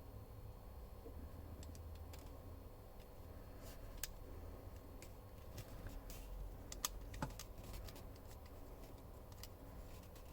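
A few irregular, light plastic clicks from a Lego ratchet mechanism being handled, over a low steady hum.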